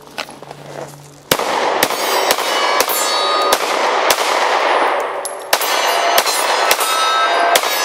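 SCCY CPX-2 9mm pistol firing about ten quick shots, six in a row and then four more after a short pause, each followed by steel targets ringing as they are hit.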